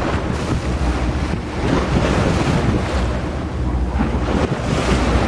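Wind buffeting the microphone in uneven gusts aboard a boat on open water, over a steady low rumble.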